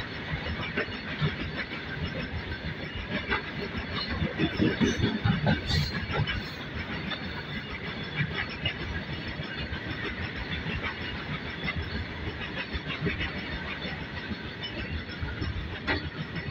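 Loaded open-top freight wagons of a goods train rolling past slowly: a steady rumble of wheels on rail, with repeated knocks and clicks as the wheels cross rail joints. It gets louder for a couple of seconds about four to six seconds in.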